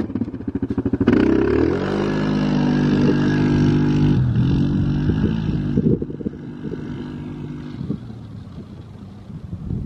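ATV engine idling, then revving up about a second in and accelerating hard, with a brief dip in revs around four seconds as it shifts, before fading as the quad drives off.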